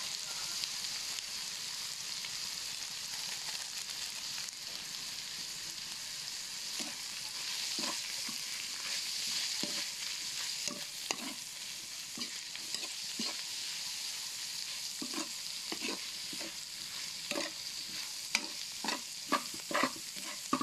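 Bitter gourd, egg and ground meat sizzling in a wok with a steady hiss, while a metal spatula scrapes and knocks against the pan. The spatula strokes start about a third of the way in and come quicker near the end.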